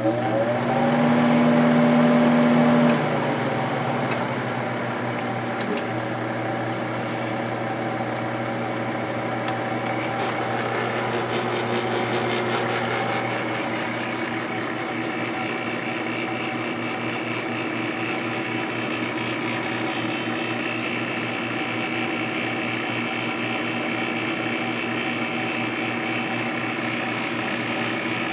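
Sharp 8500 BTU window air conditioner starting up: a motor spins up with a rising whine, a loud hum carries for the first three seconds or so and then drops, and the unit settles into steady running with a mains hum. From about eight seconds in, a rush of air grows in as the fan comes up to speed.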